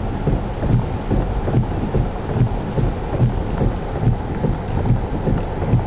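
Tropical-storm wind buffeting a pickup truck, heard from inside the closed cab: a loud, steady low rumble broken by rapid, uneven thumps of the gusts against the truck.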